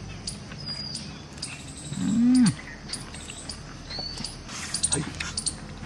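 Close-up eating sounds of a man eating biryani by hand: scattered wet chewing and lip-smacking clicks, with a short hummed "mm" about two seconds in. A few faint high chirps sound now and then.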